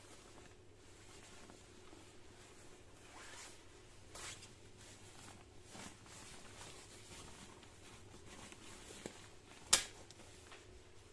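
Faint rustling of a padded waterproof dog coat's fabric and its plastic packaging bag being handled. A louder brief rustle comes about four seconds in, and a short sharp sound near the end as the coat is laid down on the bag.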